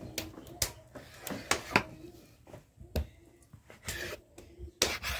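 Kitchen knife blade knocking on a wooden board as dough is cut into pieces: a series of irregular sharp knocks.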